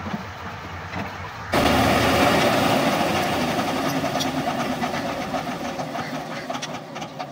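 Engine running steadily and loudly; about a second and a half in it turns suddenly louder and fuller, then runs on evenly until it cuts off.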